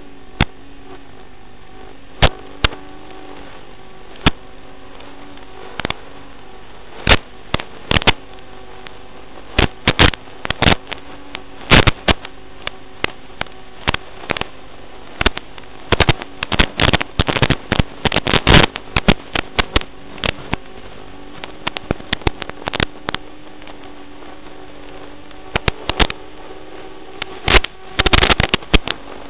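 Audio of an analog FPV video link: a steady hum with a wavering low tone under it, broken by frequent sharp crackles and pops of radio static. The crackles come thickest in the middle and in a dense burst near the end, where the signal breaks up.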